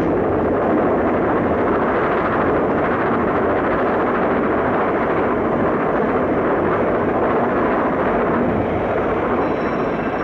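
Steam locomotive 4472 Flying Scotsman, an LNER A3 Pacific, running at speed with a steady, unbroken noise.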